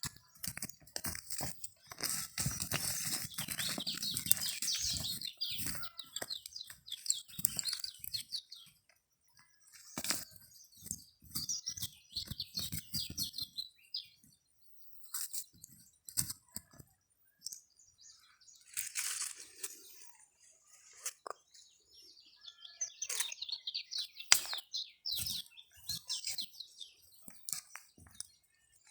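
Hands digging and scraping through sandy soil in irregular bursts of gritty scratching, with short pauses between: a search for buried maleo eggs.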